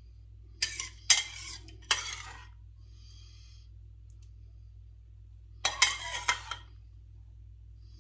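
Metal spoon clinking and scraping against the dishes while scooping set jelly: three sharp clinks in the first two seconds, then another quick cluster of clinks a little past the middle.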